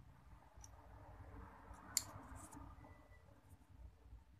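Faint handling of small objects on a tabletop, with a few light clicks and one sharp click about two seconds in.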